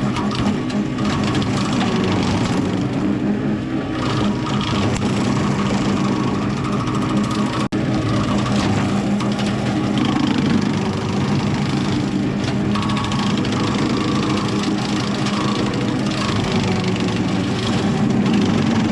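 Tractor engine running steadily under load, driving a bushhog rotary cutter with chainsaw teeth bolted onto its blades. The sound drops out for an instant a little before halfway through.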